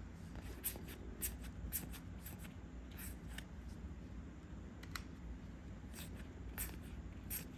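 Trading cards being handled and flipped through by hand, with faint, scattered light clicks and slides of card stock at irregular moments.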